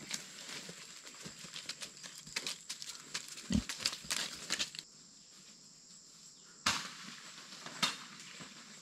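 A pig rustling and crackling through dry leaf litter and undergrowth, with a dull thump about three and a half seconds in. After that come two sharp snaps near the end, over a steady high insect drone.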